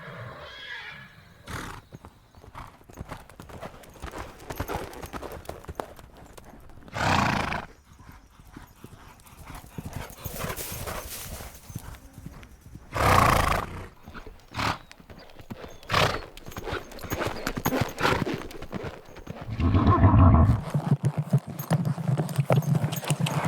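A horse moving around a round pen, its hooves clip-clopping in a loose rhythm, with loud vocal outbursts from the horse about 7, 13 and 20 seconds in.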